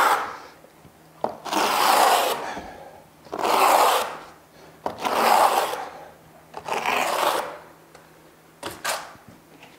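A flat float scraping in long strokes over Kerdi membrane, pressing it into wet thinset: four drawn-out scrapes about a second each, then two short ones near the end.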